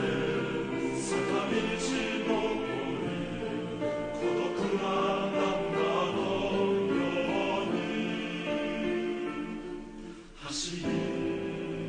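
Background music: a choir singing long, layered held notes, which fade briefly about ten and a half seconds in and then come back.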